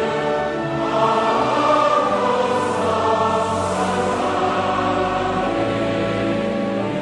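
Choir singing long held chords.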